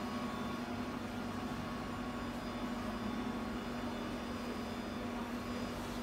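Steady machine hum of a small server room's running air conditioning and equipment: an even whooshing noise with a constant low tone that does not change.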